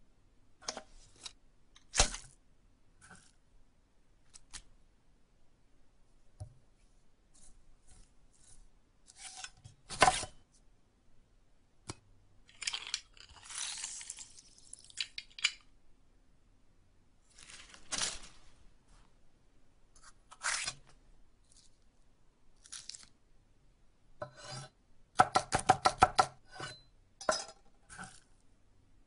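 Food-preparation handling noises: scattered sharp knocks and clicks, a stretch of rustling about halfway through, and a quick run of about a dozen rapid taps near the end.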